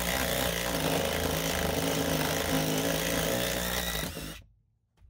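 Cordless impact driver running steadily on a socket extension, backing a seat-mounting bolt out of the floor, then stopping suddenly about four seconds in.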